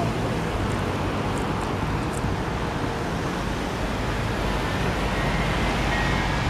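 Steady low rumble of a vehicle running, with faint thin high tones coming in near the end.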